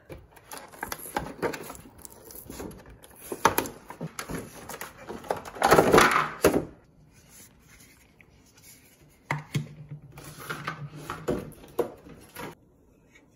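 Bubble wrap and plastic packaging rustling and crinkling as a figurine is unwrapped by hand, loudest about six seconds in, followed after a short lull by lighter crinkles and small handling clicks.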